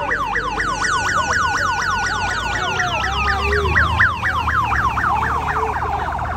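Vehicle siren on a fast yelp, rising and falling about four times a second as the convoy passes. A second steady siren tone starts sliding down in pitch about three seconds in. Low engine rumble from the passing vehicles comes in underneath at about the same time.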